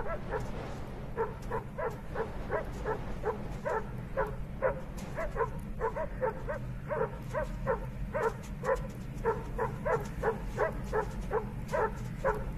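A dog barking over and over, short yelping barks about two to three a second, over a low steady hum.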